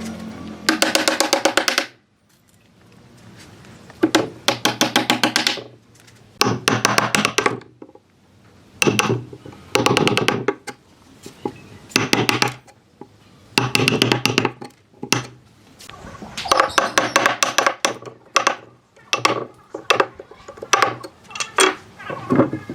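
Rapid runs of sharp knocks on wood, each run a second or two long, starting and stopping again and again throughout.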